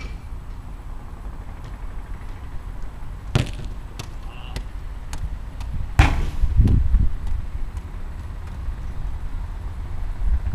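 Two sharp knocks, the second and louder one about six seconds in and followed by a short low rumble, over a steady low outdoor rumble.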